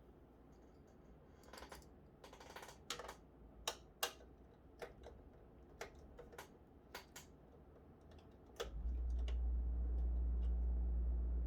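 Scattered sharp clicks and short scrapes of hands handling PC hardware, typical of fitting a graphics card and screwing its bracket into the case. Near the end a loud steady low hum starts suddenly.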